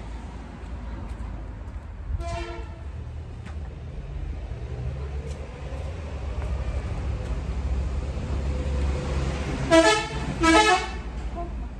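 Rubber squeaky toy ball squeezed, giving short honk-like squeaks: one about two seconds in, then two louder ones near the end. A steady low rumble runs underneath.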